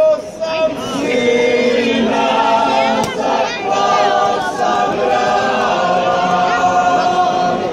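A folk group singing a traditional Croatian song together in chorus, the voices holding long notes.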